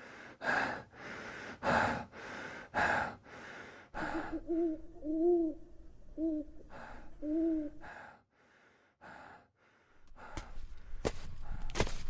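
A person breathing hard and fast, about two breaths a second, for roughly four seconds; then an owl hooting several times, short and longer hoots in a pattern; a few softer breaths follow, and near the end sharp step-like impacts begin and grow louder.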